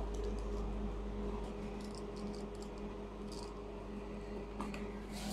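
Quiet room tone with a low steady electrical hum and a few faint, soft ticks.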